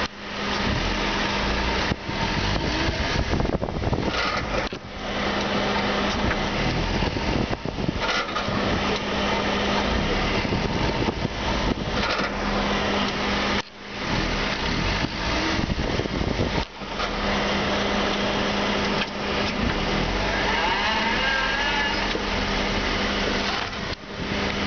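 Chevrolet Celta running with a steady noise from the front end, the same noise that also comes on under harder braking; the owner suspects the front lower control arm bracket ('morceguinho'), which a mechanic could not make rattle. The sound dips briefly several times.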